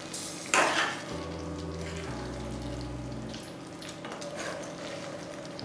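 Thick masala curry sizzling in a pan while boiled eggs are turned and coated in it. A brief, louder burst of stirring and sizzling comes about half a second in, then a steady soft sizzle.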